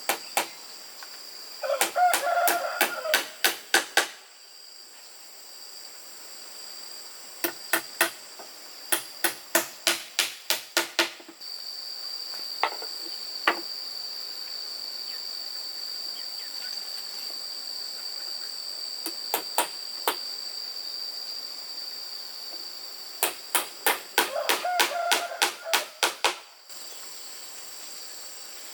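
Hammer driving nails into wood in four bursts of quick, even blows, about four a second, over a steady high drone of insects.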